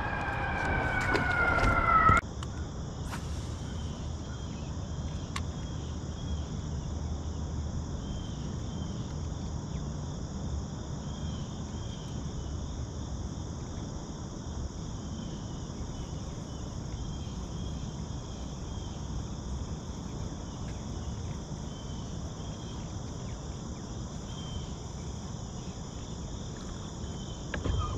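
Steady high chorus of insects buzzing. In the first two seconds a louder falling two-tone whine rises in volume and then cuts off suddenly.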